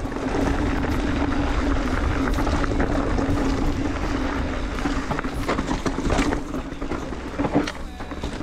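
Mountain bike riding downhill on a dirt trail: wind rushing over the camera microphone and tyres rolling on dirt, with a steady hum and sharp rattling knocks from the bike, a few louder ones near the end.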